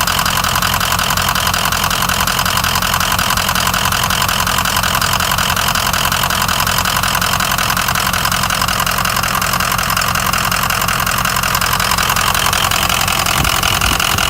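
Ford 6.0 Power Stroke V8 turbo-diesel idling with a loping, rough idle, the sign of a failed number 7 fuel injector.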